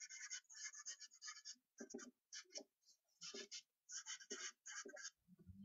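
Charcoal scratching on newsprint, faint. A quick run of strokes comes first, then short strokes in small groups with pauses between them.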